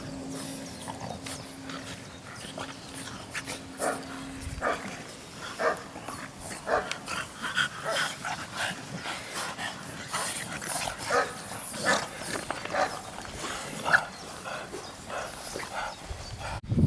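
Young dogs at play, giving many short, irregular yaps and barks.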